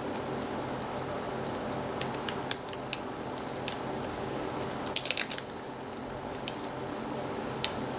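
Fingers handling a laptop LCD panel's display ribbon cable and its adhesive tape: scattered small clicks and crinkles, with a quick cluster of crackles about five seconds in, over a steady background hum.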